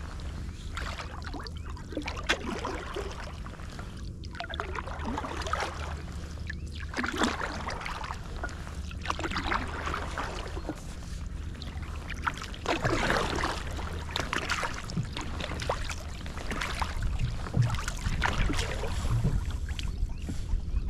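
Wooden Greenland paddle dipping and pulling through calm water, a splash and drip of water with each stroke, every second or two.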